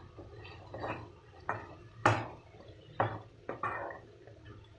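A metal spoon stirring thick mutton masala in a ceramic-coated wok. It scrapes and knocks against the pan in about six irregular strokes, the loudest about two seconds in.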